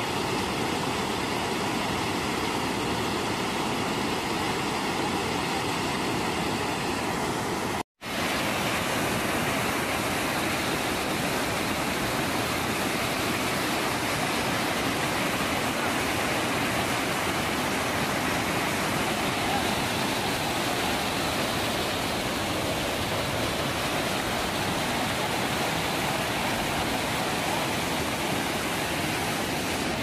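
Steady rushing of a waterfall, even and unbroken apart from a momentary dropout to silence about eight seconds in.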